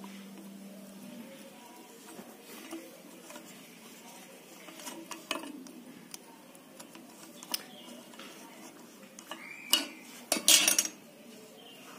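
Bearing cup being unscrewed from the crank of a cast-iron sewing machine stand, its steel bearing balls loose inside: light metal scraping and small clinks, then a short rising squeak and a cluster of sharper metallic clicks near the end.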